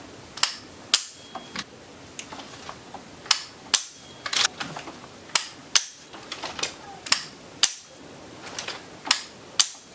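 Metallic clicks of an AR-15 being dry-fired over and over: the safety selector snapping off, the hammer falling on an empty chamber, and the charging handle racked to reset the trigger. The sharp clicks come mostly in pairs about half a second apart, five times over.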